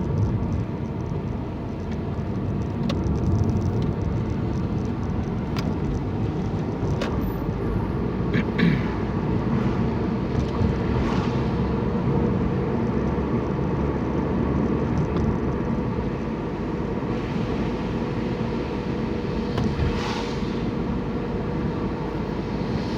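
A car driving, heard from inside: steady engine and tyre rumble with a faint constant hum, and a few light clicks here and there.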